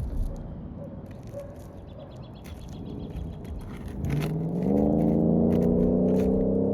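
Light clicks and scraping from work on asphalt roof shingles as fasteners are removed. About four seconds in, an engine starts up, rises in pitch, then holds a steady note, and this is the loudest sound.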